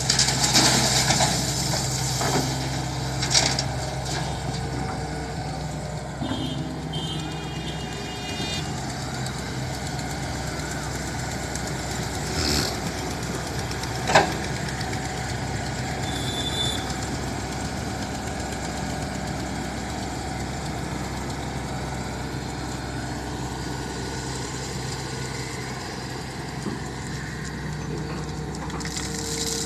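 Excavator's diesel engine running steadily, with clattering in the first few seconds and a few sharp knocks later, about 12 and 14 seconds in.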